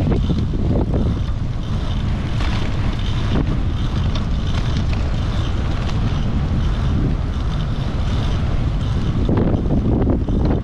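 Wind buffeting the microphone of a GoPro mounted low on a moving bicycle, a loud, steady low rumble, mixed with the tyres rolling on wet asphalt.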